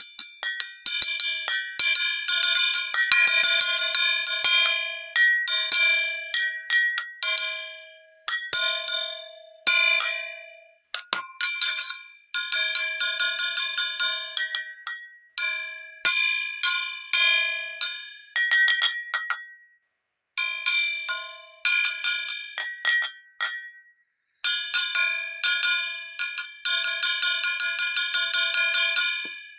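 Glass bottles struck over and over in quick runs, each strike ringing with a clear bell-like pitch, a few different pitches in turn, with brief pauses between runs.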